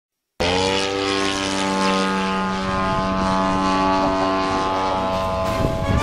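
Radio-controlled model airplane's propeller engine running at a steady pitch. It starts suddenly about half a second in with a slight rise, then breaks up near the end.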